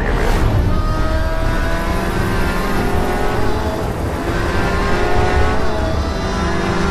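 Sports car engines running hard at speed, the engine note sliding slowly down twice over a heavy low rumble.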